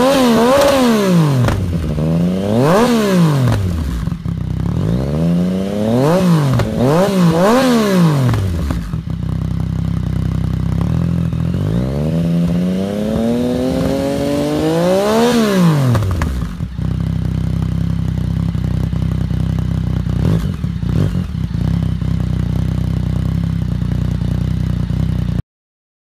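Yamaha XSR900's three-cylinder engine through a Zard slip-on exhaust with a carbon triple-outlet tip, revved while standing: four quick blips in the first eight seconds, then one longer rev that climbs slowly and drops back about halfway through. It settles to a steady idle, and the sound cuts off abruptly near the end.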